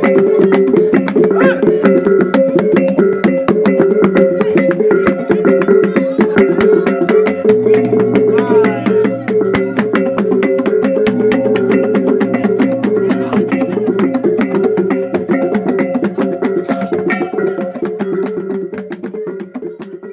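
Sumbanese gong ensemble: several hanging gongs struck in a fast, unbroken rhythm, their pitched tones ringing together with sharp strikes on top. It fades out near the end.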